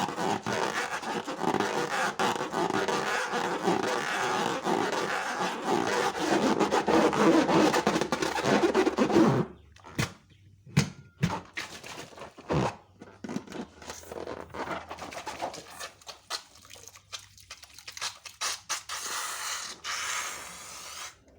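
Slime being kneaded and stretched by hand: dense wet squishing and rubbing for about nine seconds, then it stops abruptly and only scattered small pops and clicks follow.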